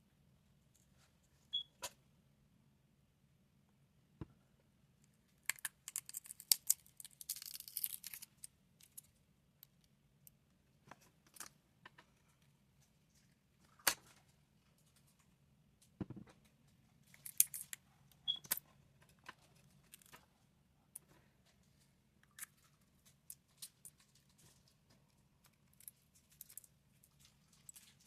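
Scattered small clicks and taps of hand tools working on a phone during a back-glass repair, with a crackling, rasping stretch about five to eight seconds in. A faint steady low hum sits underneath.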